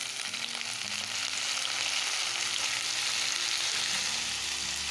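Chopped long beans and pointed gourd sizzling steadily in hot oil in a non-stick wok.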